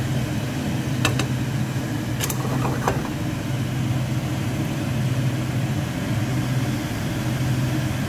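A steady low mechanical hum of a kitchen appliance motor, with a few short clicks of a metal spatula against the frying pan about one, two and three seconds in.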